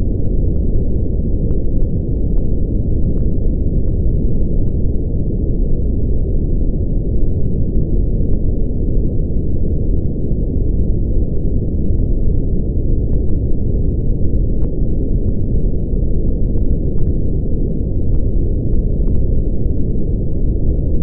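Brown noise: a steady, featureless deep rumble, heaviest in the lowest frequencies and with almost nothing above the low midrange, like a distant waterfall or heavy rain.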